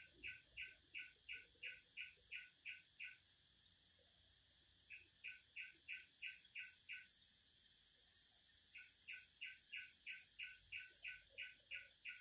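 Cicadas singing in a continuous high-pitched drone that breaks off about a second before the end. Under it, runs of short, evenly spaced chirps at about four to five a second, with two brief pauses, come from another singing insect or bird.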